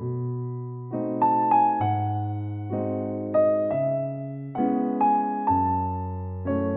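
Background music: a slow, gentle electric piano piece, chords and a melody played with new notes about once a second over a changing bass.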